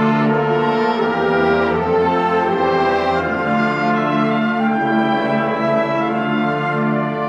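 Symphonic wind band playing slow, sustained chords on woodwinds and brass.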